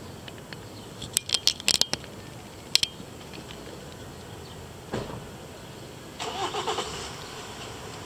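Steady outdoor background noise broken by clusters of sharp clicks and clinks in the first few seconds, a single dull knock about five seconds in, and an uneven, noisy sound lasting about a second near the end.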